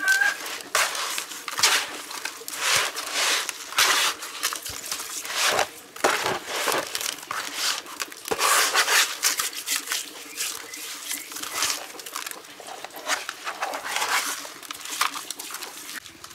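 Bare hands rubbing and turning raw pork slabs in a plastic basin, working a coarse spice rub into the meat: irregular squishing and gritty rubbing sounds.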